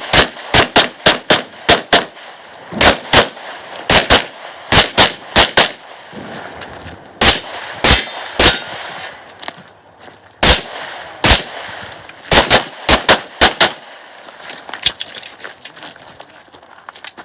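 Strings of pistol shots from a Glock 34 built as a USPSA Open Division gun. The shots come in fast pairs and runs, with pauses of a second or two between strings, and a few fainter shots after the last quick string.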